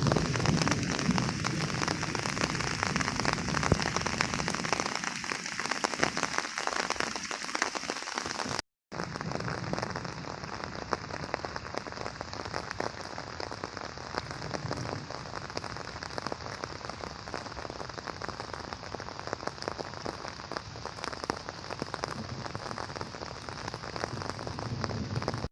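Steady rain falling, a dense patter of drops striking surfaces. The sound cuts out for a moment about nine seconds in.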